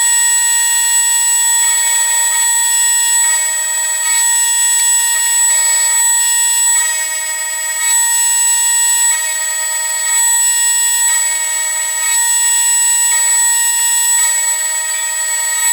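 A steady high-pitched machine whine holding one pitch, like a motor running at constant speed, with a fainter lower tone cutting in and out about once a second.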